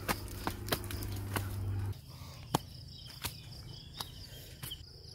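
Footsteps on a rocky hillside path, a sharp click at each step, about one step every half to three-quarters of a second. Insects buzz steadily and high behind them, and a low steady hum cuts off about two seconds in.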